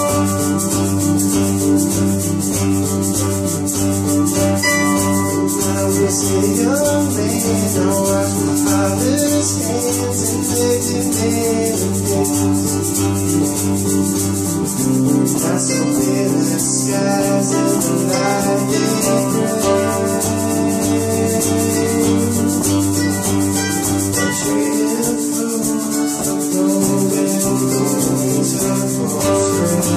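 Live acoustic band music: strummed acoustic guitars and other string instruments playing an original tune with a steady rhythm, changing chords about halfway through.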